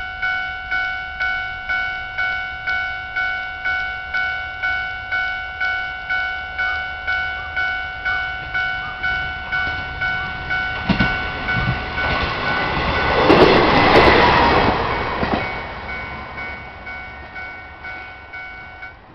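Japanese level-crossing alarm ringing its even, repeating electronic ding, just under two strokes a second. About eleven seconds in, a train passes over the crossing with sharp clacks of wheels on the rail joints. It is loudest a few seconds later, then fades while the alarm keeps ringing, and the alarm stops near the end.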